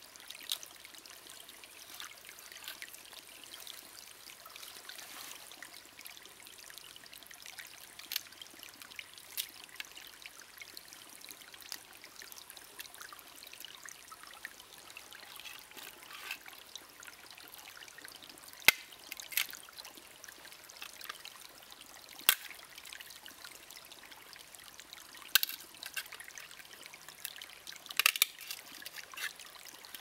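Shallow stream trickling steadily, with several sharp clicks and knocks from a knife cutting through a quail against a plate, most of them in the second half.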